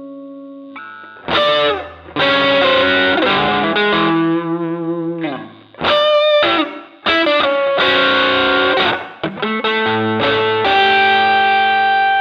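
Electric guitar played through an MXR Dynacomp compressor pedal: short phrases of chords and single notes that ring out with long sustain, broken by brief gaps.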